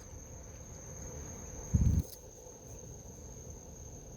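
Crickets trilling steadily in one high continuous tone, with a brief low thump about two seconds in.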